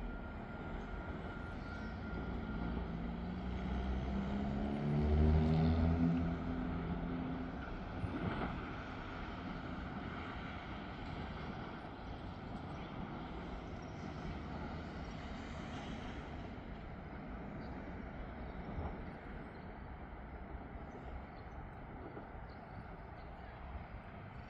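Cars driving over a railroad grade crossing, over a steady low engine rumble. One engine rises in pitch and is loudest about five seconds in. A single knock follows a few seconds later.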